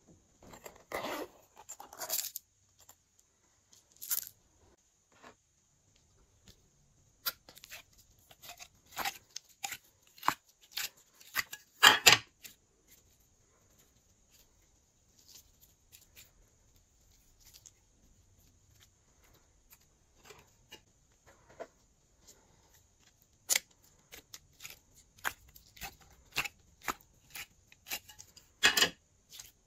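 Slime being stretched, folded and squeezed by hand, giving irregular sticky clicks and crackling pops, with the odd click of a plastic container being handled. The loudest pops come about halfway through and again near the end.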